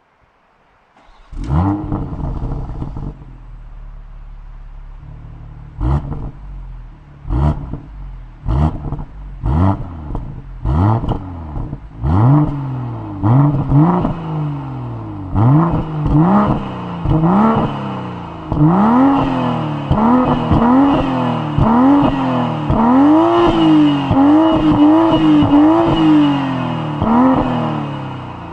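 BMW M340i's 3.0-litre turbocharged inline-six (B58) with its stock exhaust in Sport+ mode, stationary and warm: it fires up about a second in with a loud flare, settles to idle, then is revved in quick throttle blips, each rev rising and falling back, coming faster and held higher toward the end.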